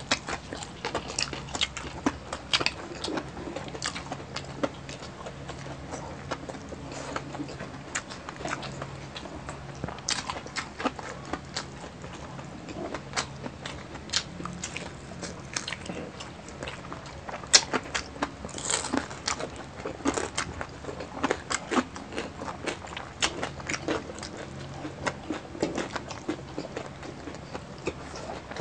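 Close-miked chewing and crunching from two people eating crispy pata (deep-fried pork knuckle) and fried rice by hand. It comes as irregular sharp crunches, bites and mouth clicks.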